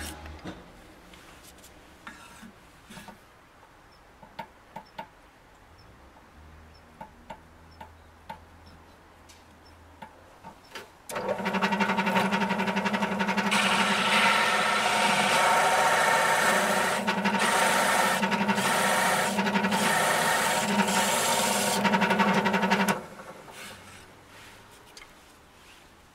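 Drill press fitted with a twin-blade adjustable circle cutter cutting a round hole through a wooden board. A steady machine hum with a loud rasping, scraping cut starts abruptly about eleven seconds in, grows harsher a couple of seconds later, and stops abruptly near the end. Before it there are only a few light clicks and knocks as the board is handled.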